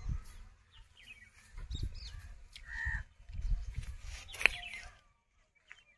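Faint bird chirps over soft, irregular footsteps on dry earth, with one short sharp chirp about two-thirds of the way through.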